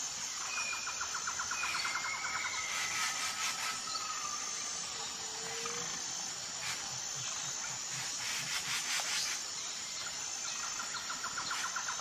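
Outdoor nature ambience: a steady, high insect chorus with bird calls over it. There are short whistled glides and a fast trill about a second in, and another fast trill near the end.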